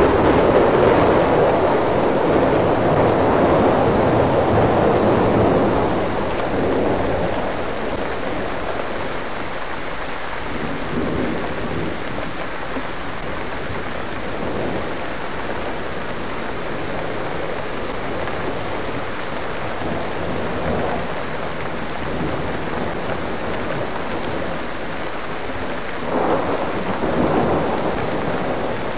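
Steady rain falling during a thunderstorm. A long roll of thunder is loudest at the start and fades out over about six seconds, and a shorter rumble of thunder comes near the end.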